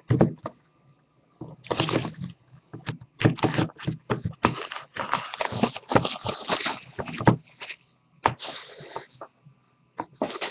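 A cardboard trading-card hobby box being handled and opened by hand: a run of rustling, scraping and crinkling with small knocks, and one sharp click about eight seconds in.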